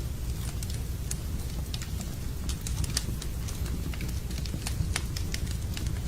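Wood fire crackling in a fireplace: irregular sharp pops and snaps over a steady low sound of the burning.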